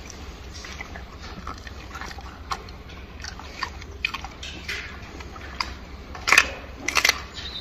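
Gorilla chewing a banana: irregular wet mouth smacks and clicks, with two louder smacks near the end.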